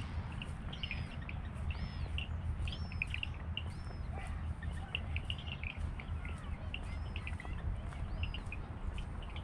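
Several birds chirping busily, with short high notes and repeated arched whistles throughout, over a steady low rumble.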